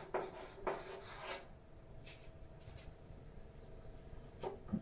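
Pen strokes of handwriting on a board: several short strokes in the first second and a half, then mostly quiet, with a few more strokes near the end.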